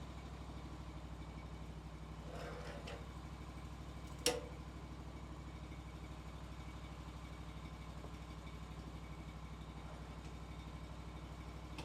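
An engine idling steadily with an even pulse, and a single sharp click about four seconds in.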